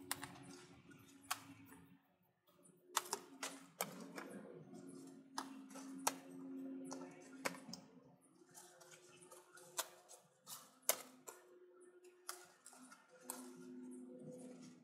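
Rhubarb stalks being pulled and snapped off the plant's crown by hand: irregular sharp snaps and clicks with leaf rustle, a few at a time with short pauses. A faint steady low hum runs underneath.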